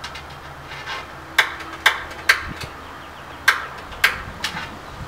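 Gas grill's igniter clicking as the burners are lit: six sharp clicks spaced unevenly, in two groups of three.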